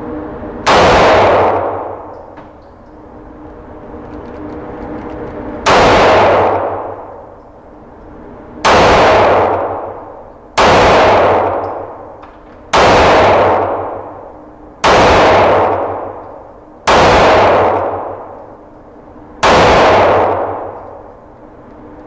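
Eight 9mm pistol shots from a Springfield Armory XD-E 3.3, fired at a slow, deliberate pace: the first, a pause of about five seconds, then the rest every two to three seconds, emptying its 8-round magazine. Each shot is loud and echoes off the walls of the indoor range, dying away over about a second.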